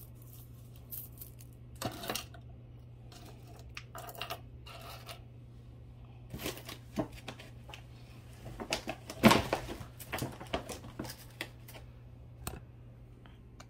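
Plastic bag crinkling and rustling as a mass of costume jewelry is handled, with small clinks of metal and bead pieces, in short scattered bursts that are loudest about nine seconds in.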